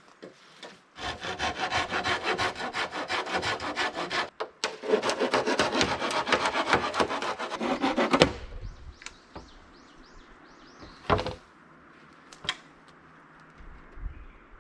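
Hand saw cutting through wood in quick, even strokes, with a brief pause partway through; it stops about eight seconds in, and a couple of separate wooden knocks follow.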